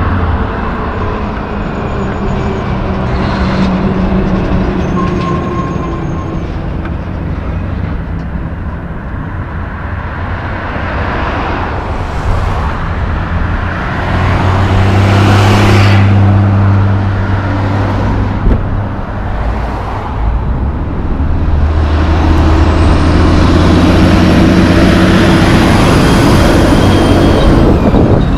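Traffic passing on a city road: cars, a pickup and diesel big rigs going by. Near the end a loaded log truck's diesel engine pulls past close by, with a high whine over the engine drone.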